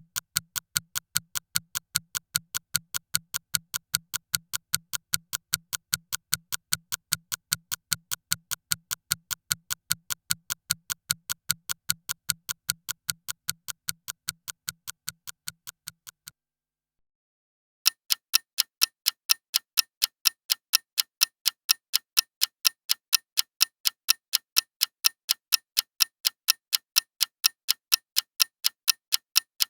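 A clock ticking with a fast, even tick of about two to three ticks a second. About 16 seconds in it fades, stops for a second and a half, and then a different, brighter-sounding clock tick starts up at the same quick pace.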